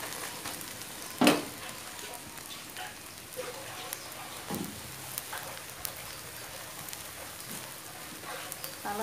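A thin egg omelette frying in a nonstick pan, with a steady light sizzle and a single sharp knock about a second in.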